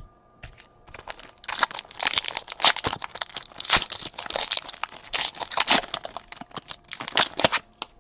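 Foil wrapper of a trading card pack being torn open and crinkled by hand: a dense crackling that starts about a second and a half in and stops just before the end.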